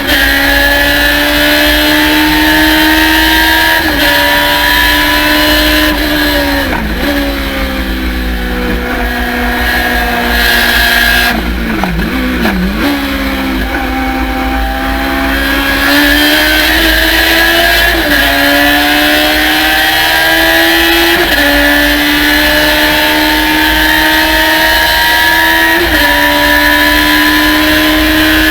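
Thunder Roadster race car engine at racing revs. The pitch climbs slowly and then drops sharply at each shift, several times. About a quarter of the way in the revs fall away and stay lower for several seconds, stepping down twice more, before it pulls up through the gears again.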